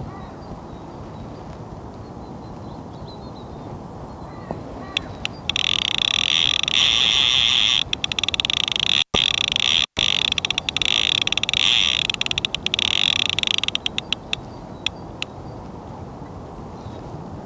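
Fishing reel's clutch ratcheting as a hooked barbel pulls line off against it: a few clicks about five seconds in, a fast steady buzz of clicks for about eight seconds, then slowing to scattered clicks that die away.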